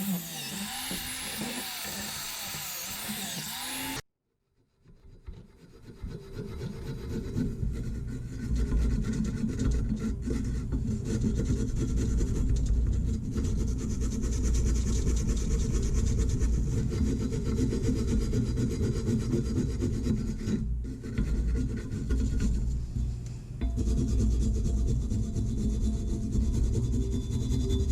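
A high-pitched power tool runs for the first few seconds, then cuts off. After a short silence comes steady hand rubbing and scraping on metal, as in sanding or filing the press's rusty parts, with two brief pauses near the end.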